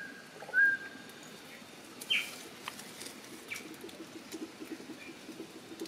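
Short whistled animal calls: two flat, high calls in quick succession at the start, then a falling chirp about two seconds in and a few fainter chirps over a steady background hiss.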